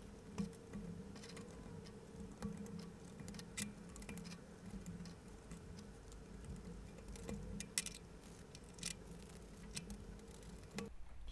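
Faint scattered clicks and light taps of thin wooden shelf pieces being handled and slotted into a paint-rack support, over a steady low hum that cuts off near the end.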